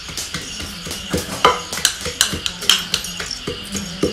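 Wooden pestle pounding garlic in a clay mortar: repeated knocks at about three strikes a second, getting louder about a second in.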